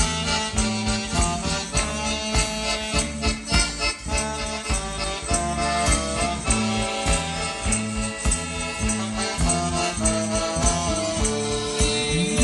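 Live folk band music: accordion, saxophone and electric guitar playing a lively tune over a drum and bass notes on a steady, regular beat.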